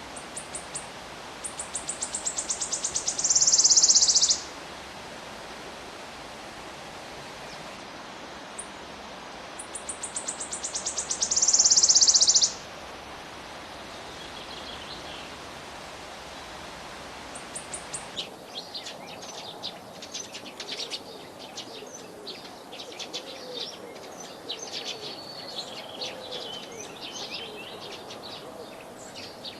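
Two loud, high-pitched trills, each a run of quickening ticks that runs together into a buzz and stops short. From about two-thirds of the way in, house sparrows chirp continuously in quick, overlapping calls.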